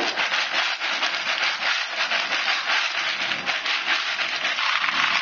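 Sea snails in their shells sizzling in a hot wok with a loud, dense crackle, the shells clicking and clattering against each other and the pan as they are stir-fried.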